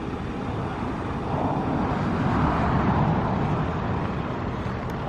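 Motor vehicle noise: a steady rumble that swells and eases off in the middle.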